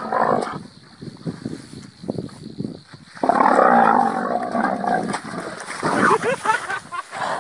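Cow letting out a loud, rough bellow about three seconds in, lasting a couple of seconds, while it attacks a large snake.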